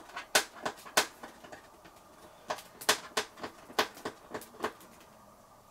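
Irregular sharp clicks and taps of hands handling and working at a cardboard product box to get it open, about eight in the first four and a half seconds, then quieter.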